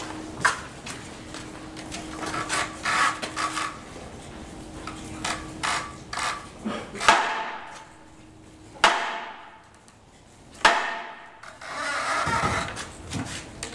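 A wooden mallet striking the junshōban, a hanging wooden signal board at a Zen temple: first a run of lighter knocks, then three loud strikes about two seconds apart that each ring out, then a quick roll of strikes near the end. It is the wake-up signal that starts the monks' day.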